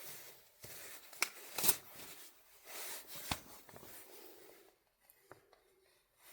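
Hands handling parts and tools: rustling with several sharp clicks and taps, then it goes quiet near the end.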